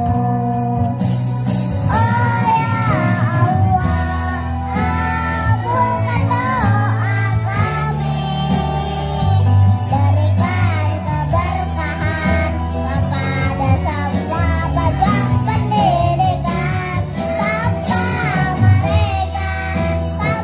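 Kindergarten children's choir singing in unison over a recorded backing track with a steady bass line.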